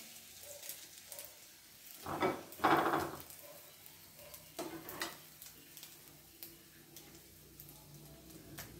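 Hot cooking oil sizzling and crackling in a wok as fried lumpia are lifted out with a wire-mesh skimmer. The skimmer scrapes and knocks against the wok about two to three seconds in and again about five seconds in.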